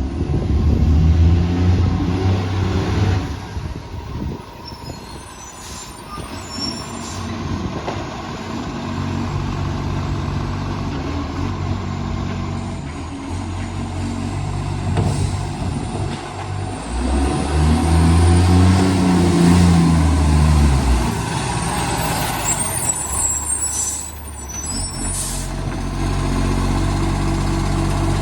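Side-loader garbage truck's diesel engine revving up and falling back twice, with the deep exhaust note of a massive exhaust leak. Short hisses, like air brakes, come a few times.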